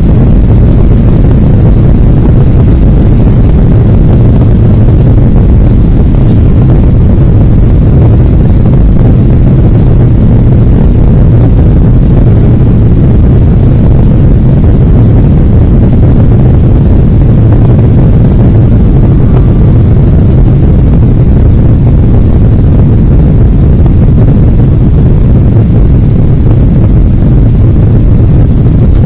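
Airliner jet engines at takeoff power heard from inside the passenger cabin: a loud, steady, deep rumble that holds unchanged throughout.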